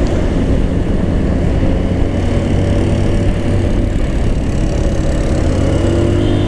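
Motorstar Easyride 150N motorcycle engine running steadily under way, stock and in its break-in period, with wind and road noise on the helmet camera; its pitch rises a little near the end as the throttle opens.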